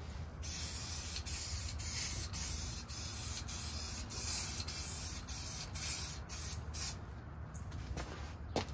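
Aerosol spray paint can hissing in a run of short passes with brief breaks, stopping about seven seconds in, as touch-up paint goes onto a plastic snowmobile hood.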